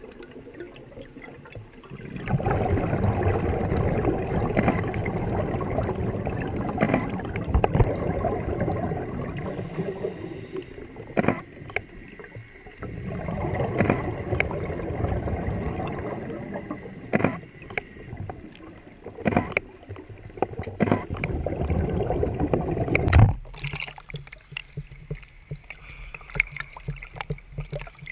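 Scuba regulator exhaust bubbles rushing and rumbling past the camera underwater, in long bursts with quieter gaps between breaths. Near the end a sharp knock, and the sound drops to lighter water lapping and sloshing at the surface.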